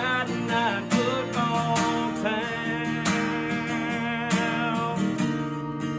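Country band playing a song's instrumental ending: strummed acoustic guitar over a steady drum beat, with a bending, wavering melody line in the first second or so.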